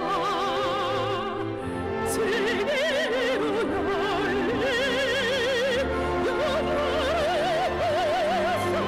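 Operatic soprano singing long held notes with a wide vibrato, over an orchestral accompaniment.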